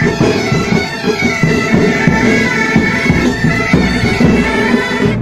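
Pipe band playing on the march: massed bagpipes sounding a steady drone under the melody, with drums beating time.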